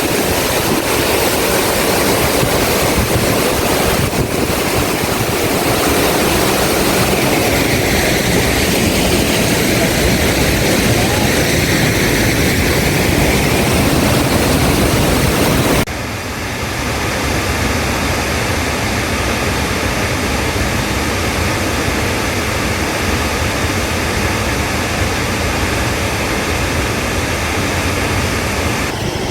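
Steady, loud roar of a large waterfall, the Chitrakote Falls on the Indravati River, with rushing water noise across the whole range. About halfway through the roar changes abruptly to a slightly quieter, duller sound with less hiss.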